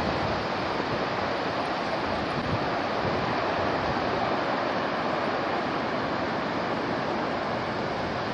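Chinda Falls pouring: the steady, even rushing noise of a waterfall.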